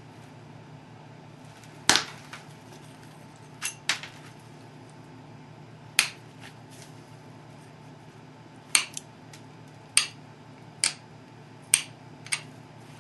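Sharp snaps of pressure flakes popping off the edge of a chert Dalton point as a hand-held pressure flaker is pushed into it. There are about ten cracks at irregular intervals, some in quick pairs, over a low steady hum.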